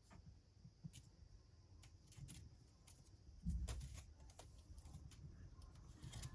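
Faint scattered light taps and scuffs of kittens moving about and playing in a basket, with a low rumble rising from about three and a half seconds in.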